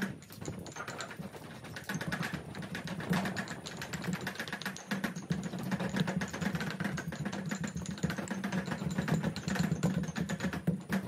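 Two stone mortars and pestles pounding herbs and chillies into curry paste: fast, irregular knocks of stone on stone, from two pestles going at once.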